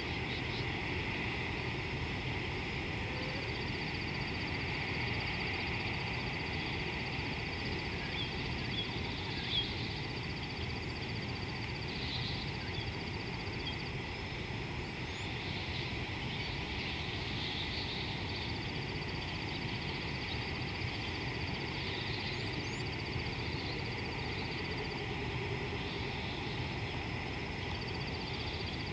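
Savanna bush ambience: a high, thin insect trill that stops and starts over a steady hiss of insects, with scattered short bird chirps, over a constant low rumble.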